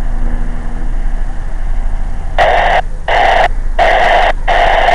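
Amateur FM radio receiving a weak, static-filled reply: steady hum and hiss, then four loud bursts of noise as the transmission breaks up, leaving the report unreadable.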